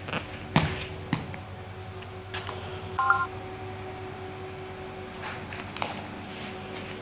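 A short run of electronic beep tones about three seconds in, over a steady electrical hum, with a few sharp clicks and knocks.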